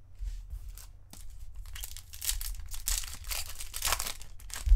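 A 2022 Topps Chrome Platinum Anniversary trading-card pack being torn open by hand, its wrapper crinkling and ripping, with most of the tearing in the second half and a loud thump just before the end.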